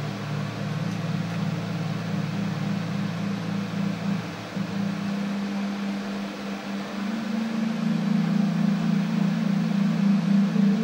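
Low sustained musical drone: several steady low tones held together with a slight pulsing waver. The lowest tone drops out about four seconds in, and the held tones shift to a new chord about seven and a half seconds in.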